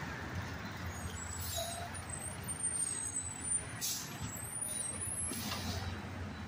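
Garbage truck's diesel engine running steadily as the truck pulls away down the street, with a few short air-brake hisses.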